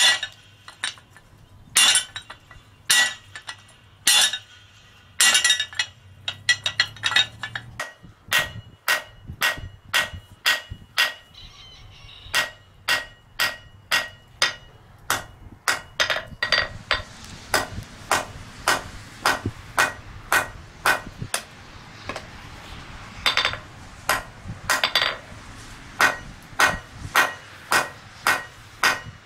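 Blacksmith's hand hammer striking hot metal on the anvil, each blow ringing. A few slower blows about a second apart, then from about eight seconds in a steady run of quicker blows, about two a second.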